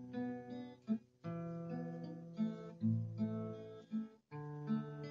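Acoustic guitar played fingerstyle with a capo: picked melody notes ringing over changing bass notes. The playing breaks off briefly twice, about a second in and again near the end.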